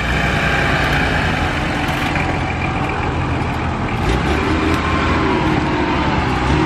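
Engine of a lifted off-road SUV running steadily as it crawls through deep mud close by, a low drone with its pitch wavering up and down a little from about four seconds in.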